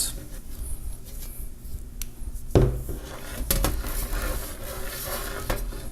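Thin spring-steel 3D-printer bed sheets being handled: rubbing and scraping with a few light metallic knocks and clinks, the loudest about two and a half seconds in.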